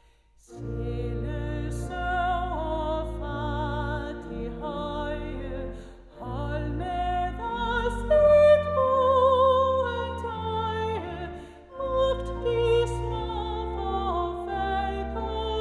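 Solo woman's voice singing a Danish hymn with vibrato, accompanied by a church organ holding sustained chords under her. The music comes in after a short pause just under a second in.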